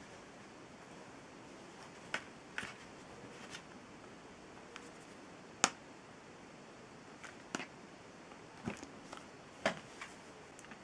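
Small sharp clicks and taps from handling a plastic phone and e-reader, held together and turned in the hands, about seven separate ticks over a faint steady hiss, the loudest about halfway through.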